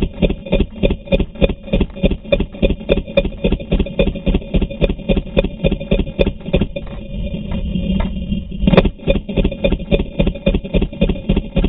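Paintball marker firing steadily, about four shots a second, each a sharp pop.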